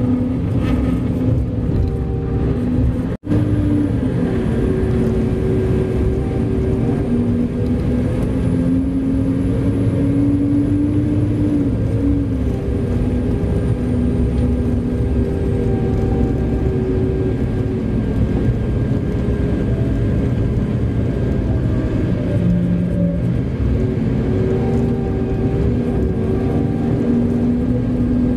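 Large Komatsu diesel engine running steadily, its hum shifting a little in pitch, with a sudden brief cut-out about three seconds in. A faint high thin whine sits over roughly the first half.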